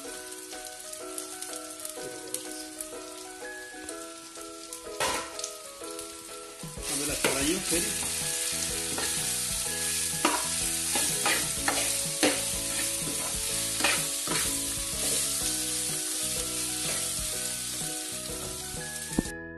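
Onions, whole coriander and fennel seeds, dried red chillies and ground spices frying in oil in a pan, sizzling, while a metal spoon stirs and scrapes through them with clinks against the pan. The sizzle gets much louder about seven seconds in, as the mix is stirred up.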